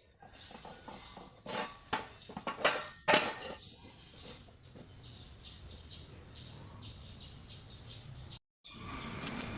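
A few sharp knocks and clinks, like hard objects handled and set down, in the first few seconds, then a low steady hum.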